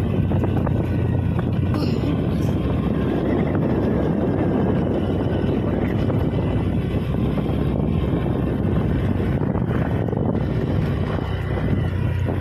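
Small motorbike engine running at a steady road speed, with wind buffeting the microphone.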